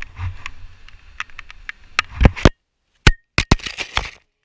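Irregular sharp clicks and knocks striking the camera's microphone, with low wind rumble under the first half. The sound cuts out completely for moments a little past the middle and again near the end.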